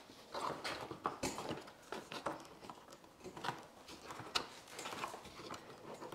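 Plastic lower grille of a Tesla Model 3 front bumper being handled and pressed into the bumper cover: light, scattered clicks and knocks of plastic on plastic at irregular intervals.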